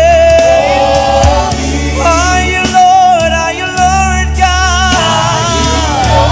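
A gospel choir or worship team sings long held notes over a steady band accompaniment.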